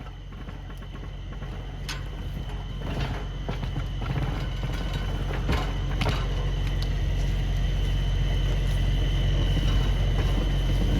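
A truck engine runs steadily and grows louder as it hauls a crawler dozer by cable, with a few sharp clicks and creaks along the way.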